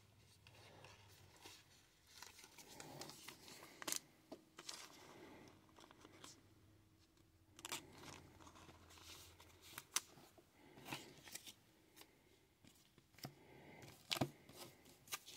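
Faint handling of trading cards and sealed card packs: a few soft clicks and rustles over near silence.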